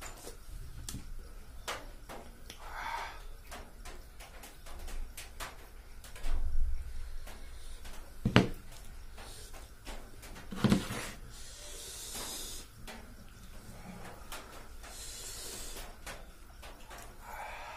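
Close-up eating sounds: wet chewing and mouth clicks, and fingers squishing rice mixed with fish curry. Two sharp knocks a couple of seconds apart as the curry bowl is tipped and set down.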